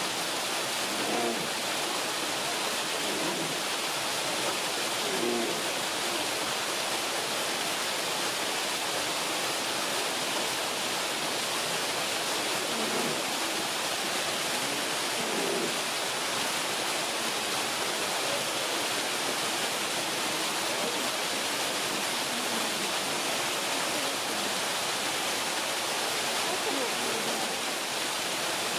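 Steady rushing hiss of running water, with faint human voices a few times.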